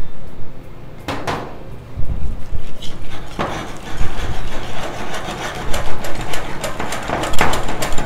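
Wire whisk beating a thin cornflour-and-flour batter in a glass bowl, its wires clicking rapidly against the glass, faster and louder from about three seconds in.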